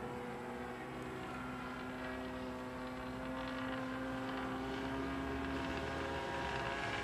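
Engine and propeller of a radio-controlled Phoenix Models YAK 54 aerobatic model plane in flight, a steady pitched drone that grows gradually louder.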